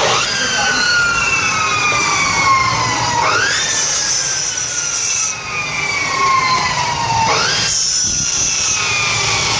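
Electronic siren in wail mode. Each cycle sweeps up quickly, then slides slowly down in pitch, and the sweep starts over three times, roughly every four seconds.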